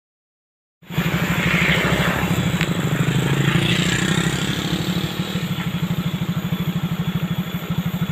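Motorcycle engine running close by, a fast, even beat of firing pulses. It starts suddenly about a second in, after a moment of silence.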